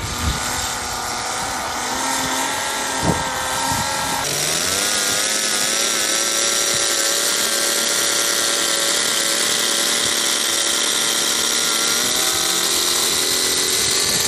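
Fixed-wing model airplane's small fuel-powered piston engine running on the ground with its propeller turning. Its pitch steps up about four seconds in, holds steady at high revs, and begins to rise again near the end as it is run up for takeoff.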